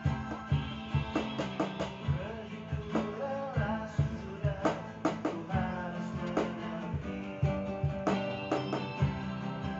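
Acoustic guitar strumming chords with a cajon slapped by hand, keeping a steady beat of about two strokes a second.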